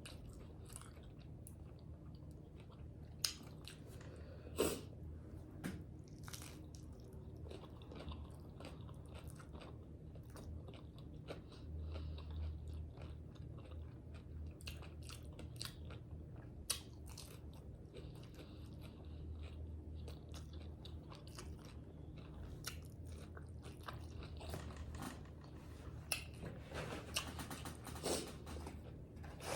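A person biting and chewing tacos close to the microphone, with many short crunches scattered throughout.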